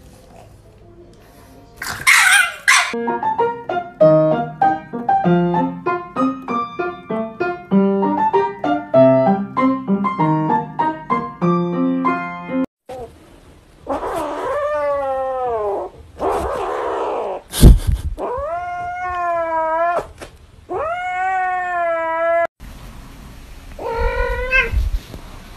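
Music with a melody of short, stepped notes for the first half, after a brief burst of noise. Then a cat meows four times in long, drawn-out yowls, with a sharp click between the first and second.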